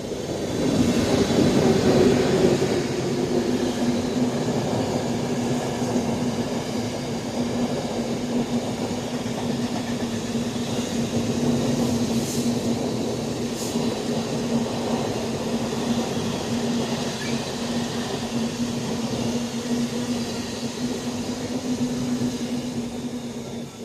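A pair of Class 90 electric locomotives hauling a freight train passing at speed. The locomotives are loudest about one to three seconds in, then the wagons rumble past with a steady hum for the rest of the train.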